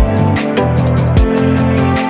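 Electronic background music with a steady beat: fast hi-hat ticks and kick drums over a sustained bass line.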